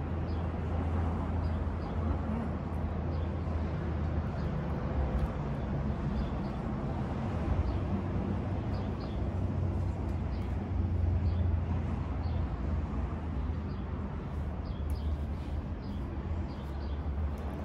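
Steady low rumble of street traffic outdoors, with faint scattered small clicks over it.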